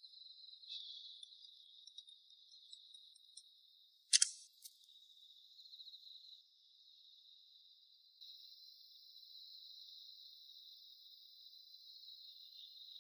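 Crickets chirring steadily in a high, narrow pitch, with one sharp click about four seconds in.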